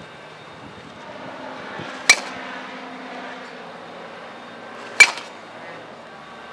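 Baseball bat striking tossed balls in batting practice: two sharp, ringing contacts about three seconds apart, the first about two seconds in.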